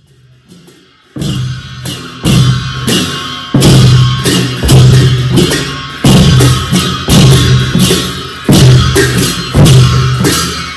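Traditional Gurung Chhyadu dance drumming. Deep drum strokes begin about a second in and keep a repeating rhythm, one heavy stroke roughly every second with lighter hits between, under a bright, hissing shimmer.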